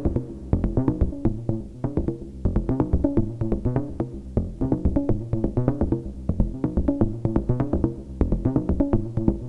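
Eurorack modular synthesizer playing a rapid, steady pattern of short, pitched, bongo-like percussive notes, shaped by a Klangbau Köln Twin Peak filter and a Make Noise Optomix low-pass gate.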